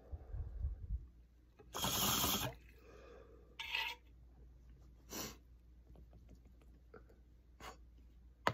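A man sniffling: a long loud sniff about two seconds in, then a few shorter sniffs a second or two apart, with a low rumble in the first second.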